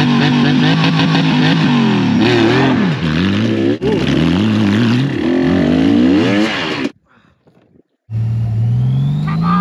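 Motorcycle engines, a Honda Gold Wing's and a dirt bike's, running and revving under load as they climb, the engine note rising and falling. The sound cuts out for about a second near the end, then an engine picks up again.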